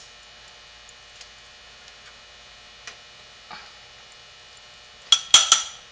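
Three quick, bright clinks on a small glass bowl about five seconds in, after a few soft taps, over a faint steady hum.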